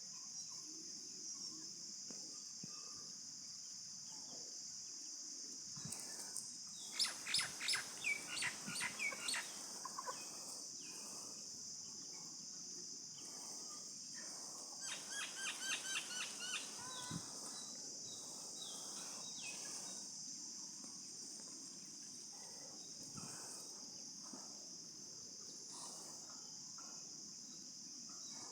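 A bird calling in two quick runs of repeated high chirps, the first about seven seconds in and the second about fifteen seconds in, over a steady high-pitched insect drone.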